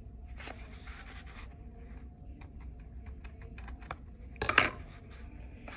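Handling and snipping with a pair of scissors to cut off excess yarn: a stretch of rustling near the start, scattered small clicks, and a louder crunch about four and a half seconds in.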